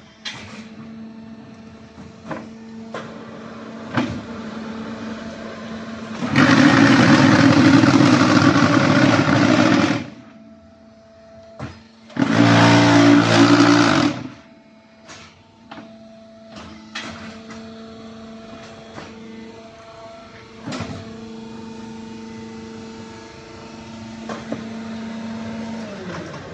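QT4-18 automatic hydraulic concrete hollow block machine running a moulding cycle. A steady hum from the hydraulic power unit is broken by clicks and clanks, and by two loud bursts of mould vibration compacting the concrete: one about six seconds in lasting some four seconds, then a shorter one two seconds after it.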